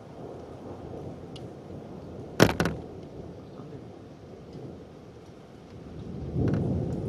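Thunderstorm with steady rain and wind noise. Two sharp cracks in quick succession about two and a half seconds in, and a swell of rumbling thunder near the end.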